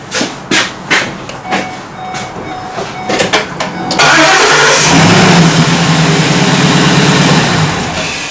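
A few light clicks and knocks, then about four seconds in an engine suddenly cranks and starts, running loudly for a few seconds before dying down near the end. The engine is the Ford E350 van's 5.4-litre V8.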